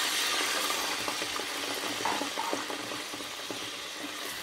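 Cold milk sizzling and bubbling in hot melted ghee in a wok: a dense hiss, loudest at first and gradually dying down. A few light taps and scrapes come from a wooden spatula stirring.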